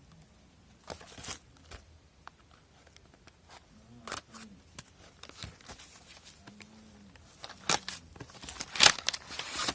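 A power bank's retail box and packaging being opened and handled: scattered rustles, scrapes and clicks, the loudest cluster near the end.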